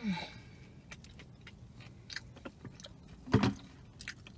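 Close-miked eating sounds: scattered small clicks of chewing, a drink from a plastic water bottle at the start, and one louder knock a little after three seconds in.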